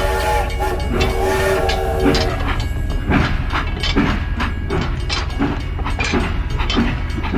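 Train horn sounding in two blasts, followed by the rhythmic clickety-clack of train wheels, about two clacks a second over a steady rumble.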